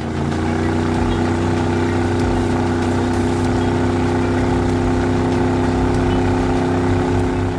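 Vehicle engine sound effect running steadily at one unchanging pitch.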